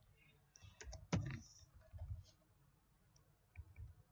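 Faint, scattered keystrokes and clicks on a computer keyboard, the loudest about a second in, with a few soft low thumps.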